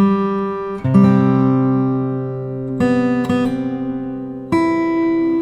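Background music: an acoustic guitar strumming chords, a new chord struck every second or so and left to ring.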